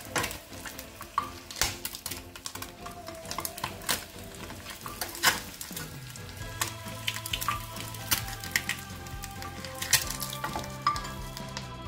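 Whole boiled eggs frying in hot oil in a pan, sizzling, with sharp clicks and scrapes of a spatula on the pan as the eggs are lifted out. Background music with steady held tones comes in about halfway.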